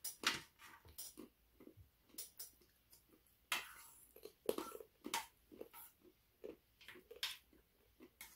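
Eating at a table: chewing, with irregular small clicks and scrapes of hands and spoons picking food and roasted hazelnuts off a stainless-steel tray.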